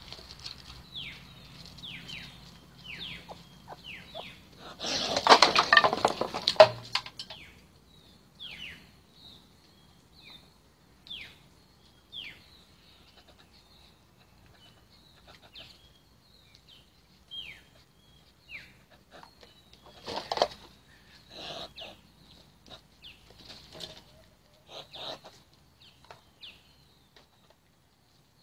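Birds' wings flapping in a loud flurry of scuffling about five seconds in, with shorter flurries later, while a bird repeatedly gives short falling chirps, about one a second at first and more scattered later.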